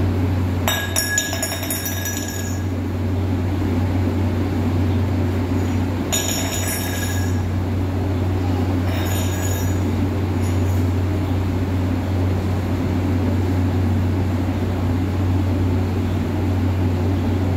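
Steady low hum of a fan motor, with a small steel cup clinking and ringing against the stone floor three times: about a second in, about six seconds in and about nine seconds in.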